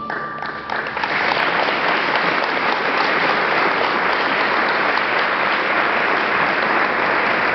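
Audience applauding steadily, the clapping building up over the first second as the last note of a music track fades out.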